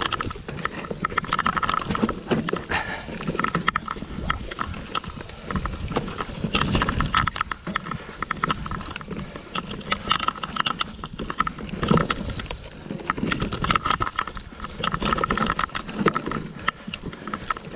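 Mountain bike riding down a dirt forest trail: tyres rolling over dirt and roots and the bike clattering with many irregular knocks and rattles over the bumps, with a low rumble of wind on the microphone.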